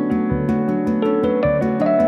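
Background music: a keyboard melody over a steady beat ticking about four times a second, with a short run of notes stepping upward about a second in.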